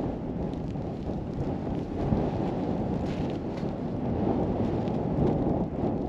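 Wind buffeting the microphone on an open frozen lake: a steady low rumble.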